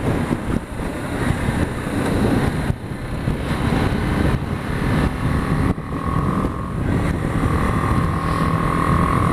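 BMW G 310 GS single-cylinder engine running under way, mixed with wind rushing over the microphone. A steady higher whine joins in about six seconds in.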